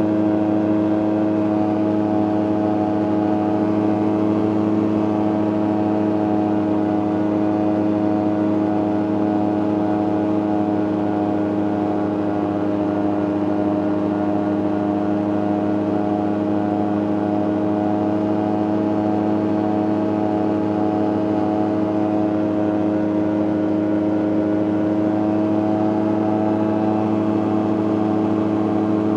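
CGS Hawk ultralight's engine and propeller running steadily in cruise flight, heard from inside the cockpit: an even hum whose pitch holds constant.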